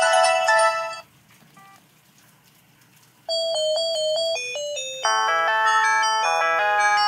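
Samsung ringtones played through a ZTE Z222 phone's speaker. One electronic ringtone melody ends about a second in. After a short pause, the next starts about three seconds in as a simple tune of single notes, which fills out into chords about five seconds in.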